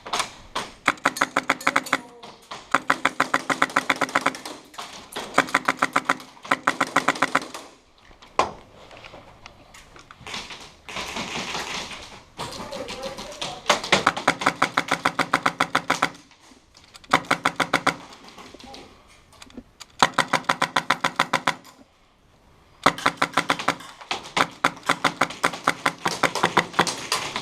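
Airsoft guns firing on full auto in repeated bursts of rapid, evenly spaced shots, each burst one to four seconds long with short pauses between.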